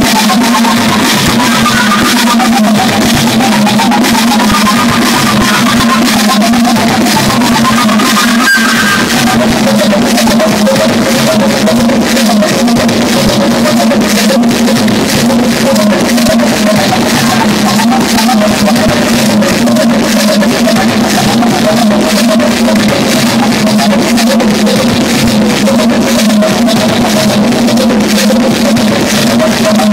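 Loud live electronic music from drum machines and synthesizers: a dense, fast beat over a steady low drone, with a higher melodic line that drops lower about eight seconds in.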